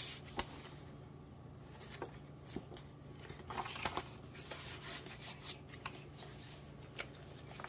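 Stained paper pages of a handmade junk journal rustling and flapping as they are turned and smoothed by hand, with scattered soft crackles and taps, over a faint steady low hum.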